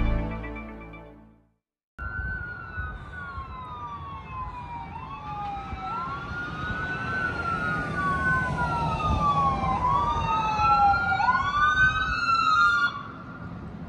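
Fire engine's siren wailing, its pitch falling slowly and rising quickly over several cycles with a second overlapping wail, over a low engine and road rumble. It cuts off sharply near the end. A snatch of music fades out in the first second.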